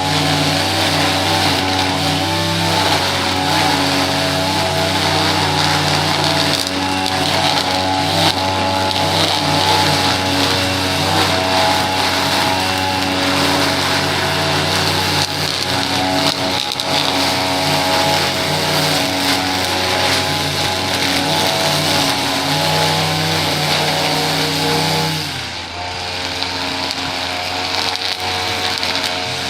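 Small petrol engine of lawn-care equipment running continuously, its pitch shifting up and down as the load changes. The sound drops and changes character about 25 seconds in.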